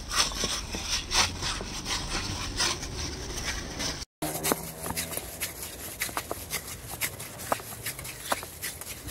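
Seasoned minced pork being squeezed and mixed by gloved hands in a stainless steel bowl, worked until it turns sticky: irregular short squelching and rubbing strokes, broken by a brief silent gap about four seconds in.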